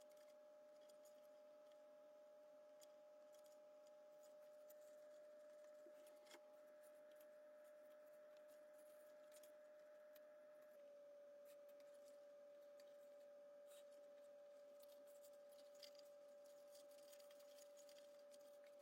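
Near silence: a faint steady hum with a few faint ticks.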